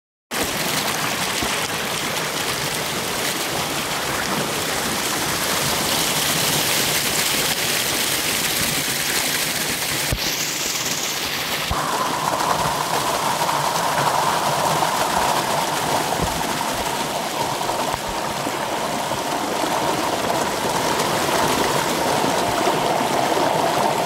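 Water of a small mountain waterfall rushing and splashing over rocks, close to the microphone: a loud, steady rush whose tone changes about halfway through.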